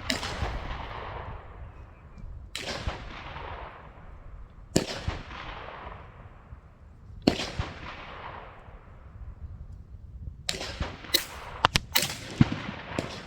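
A series of gunshots, each followed by a long echoing tail. Single shots come about two and a half seconds apart, then a quick cluster of several shots near the end.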